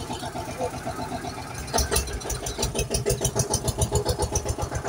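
Tractor engine chugging with a rapid, even beat, the sound effect laid over a toy tractor's climb. About two seconds in it gets suddenly louder and heavier, as if put under load.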